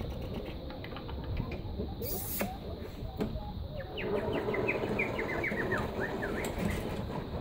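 Young puppies whimpering: a quick run of short, high squeaks, each falling in pitch, starting about halfway through.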